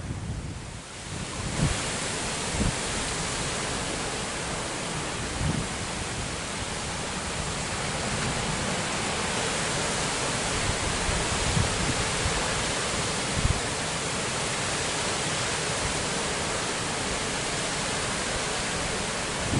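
Strong wind, a steady rushing hiss that swells in over the first second or two and then holds, with occasional low thumps of gusts buffeting the microphone.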